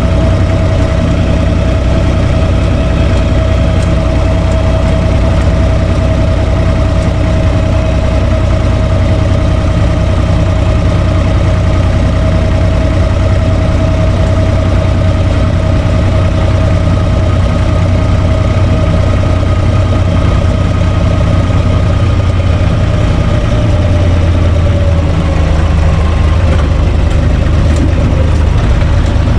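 UTB U445 DT 4x4 tractor's diesel engine running steadily under way, heard from inside the cab; the engine speed drops a little about three quarters of the way through.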